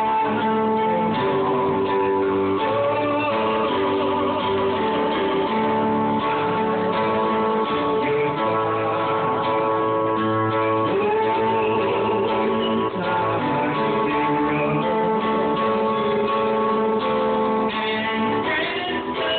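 A man singing into a microphone over guitar-led backing music played through a PA speaker.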